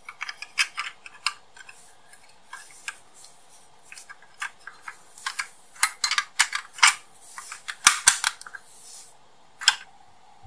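Parts of a model car clicking and tapping as gloved hands handle and press them into place: an irregular run of sharp clicks, thickest in the middle, with a single last click near the end.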